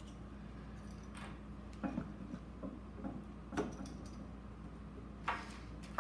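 A few scattered small clicks and light taps from handling a GoPro 10 action camera and its batteries, over a faint steady low hum.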